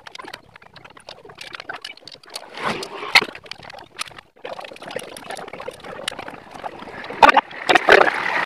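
Irregular metal clicks and scrapes of a wrench working the bolts of a motorcycle engine's stator cover, with a few sharper clicks near the end.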